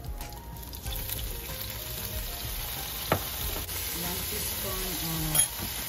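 Minced garlic and green onion sizzling in hot olive oil in a nonstick frying pan, the sizzle picking up about a second in as soy sauce goes into the pan. Two sharp knocks, about three seconds in and near the end.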